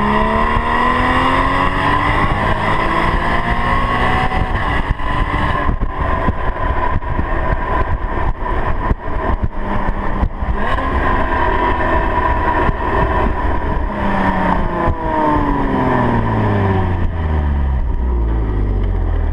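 Porsche Cayman 981's 2.7-litre flat-six accelerating, its revs climbing through the first few seconds, then running at speed under a rough rushing noise. From about 14 s the revs fall away as it slows, settling into a low drone near the end.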